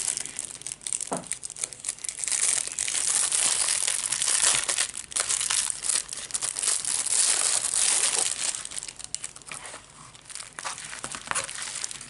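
Plastic wrapping crinkling and crackling in irregular bursts as a folded package is unwrapped and opened out by hand. It quietens about nine seconds in and picks up again near the end.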